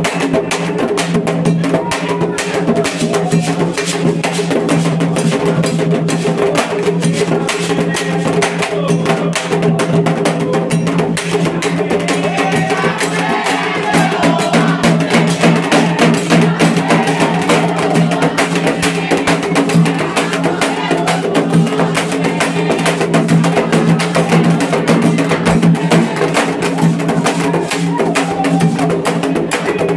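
Candomblé ceremonial percussion music: hand drums and a struck bell keep up a fast, dense rhythm, with voices singing over it around the middle.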